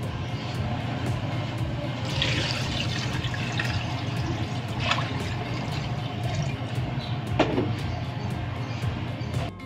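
Water poured from a pitcher into a metal pot of raw pork pieces, splashing and filling steadily, with two brief knocks about five and seven seconds in.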